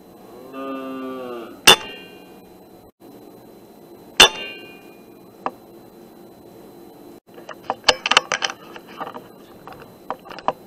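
Two shots from a Kral NP-02 PCP air rifle, about two and a half seconds apart, each a sharp crack followed by a short metallic ring. Before the first shot there is a short, low animal call that rises and falls. Near the end comes a quick run of clicks and knocks.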